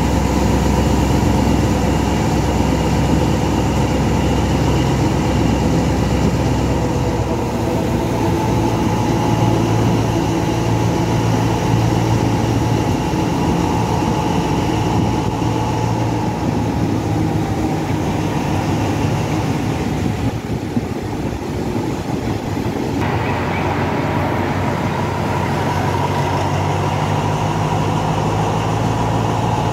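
Alsthom diesel-electric locomotive's engine running hard under load on a moving train, a continuous loud drone mixed with rail noise. Its note shifts about eight seconds in and again a little past two-thirds of the way through.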